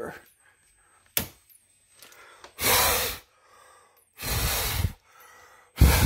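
A single click about a second in, then three hard breaths blown into a smoke detector, each about half a second long, to clear smoke still lingering in its sensing chamber.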